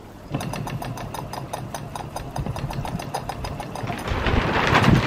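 Mamod SP4 toy steam engine starting to run about half a second in, then chuffing rapidly and evenly. A louder hissing rush builds near the end.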